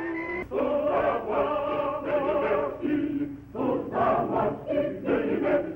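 A choir singing in short phrases, coming in about half a second in after a held instrumental note.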